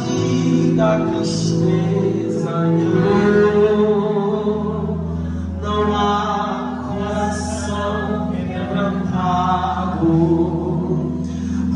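A man singing a hymn through a handheld microphone and PA speaker, over sustained accompaniment chords; a low bass note joins about four seconds in.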